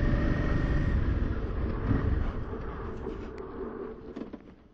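Honda XL650V Transalp's V-twin engine running low and dying away, its sound fading until it falls nearly silent near the end: the engine has stalled.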